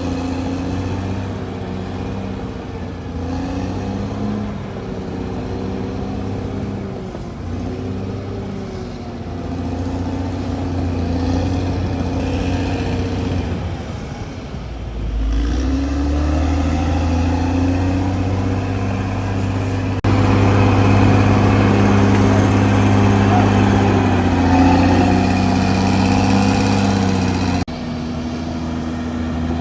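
CAT D6R XL bulldozer's diesel engine running under changing load, its pitch rising and falling as it is worked. It grows louder about two-thirds of the way in, then drops abruptly near the end.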